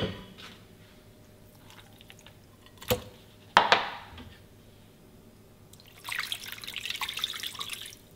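Cooking sounds in a kitchen: two sharp knocks of utensils about three seconds in, then a crackly, spattering hiss for about two seconds near the end.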